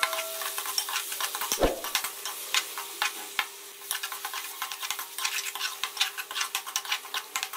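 Sliced onions sizzling as they fry in hot oil in a metal karahi, stirred with a metal spoon that scrapes and clicks against the pan over and over, with one louder knock about one and a half seconds in.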